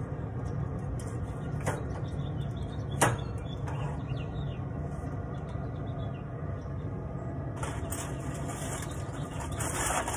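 Metal tongs and spatula clicking against the grill grate as a smoked pork butt is lifted off, with one sharp click about three seconds in. Near the end, aluminium foil crinkles as the meat is set down in it. A steady low hum lies beneath.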